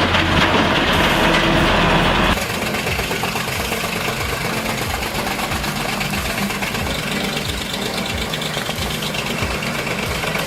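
Heavy wood chipper machinery running loud. About two seconds in, the sound changes abruptly to a lower, rhythmic engine pulsing of about three to four beats a second.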